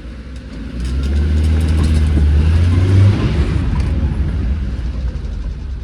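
Maruti Suzuki Eeco van's four-cylinder engine pulling away under load, its note rising for about two seconds and then easing off, with faint rapid ticking over it. This is the 'kat kat kat' rattle from under the van near the engine, which the owner hears when the van is driven and cannot yet explain.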